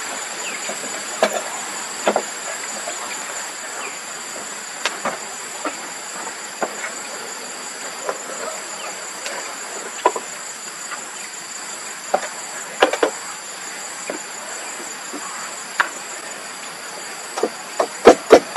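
Steady high-pitched insect chorus droning throughout, with scattered light knocks and clicks as pots and wood are handled. Near the end a quick run of loud knocks begins, several a second.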